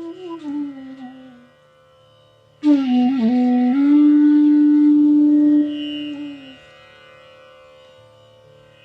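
Bansuri, the North Indian bamboo flute, playing a slow raga phrase: a note slides downward and fades, then after a short pause a sharply attacked note bends and settles into a long held tone that fades out, over a steady low drone.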